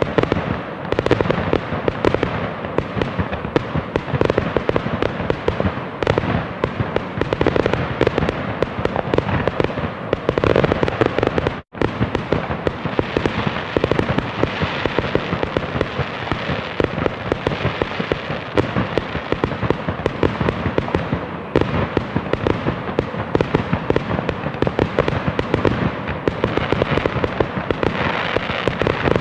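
Fireworks going off without pause: a dense, continuous crackle of many overlapping pops and bangs. It drops out for a split second partway through.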